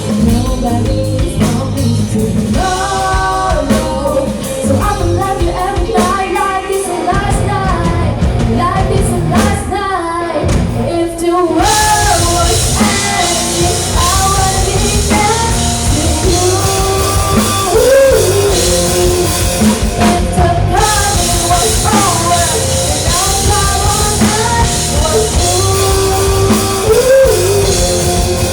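Live rock band with drum kit and guitar accompanying a singer. The full band with cymbals comes in about twelve seconds in, under the sung melody.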